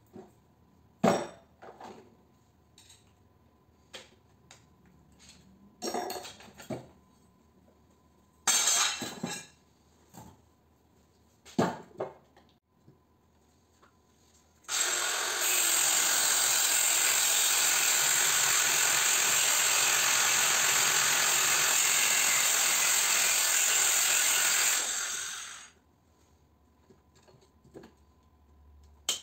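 Clanks and knocks of metal electric-motor parts being handled, then a handheld power tool runs steadily for about ten seconds and spins down near the end.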